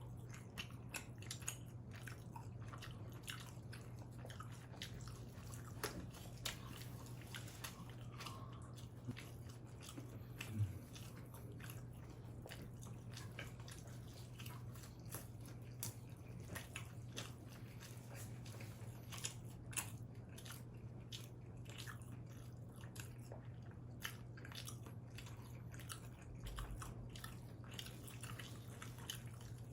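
Close-miked chewing and biting of combination pizza: many small, irregular wet mouth clicks and light crunches, over a steady low hum.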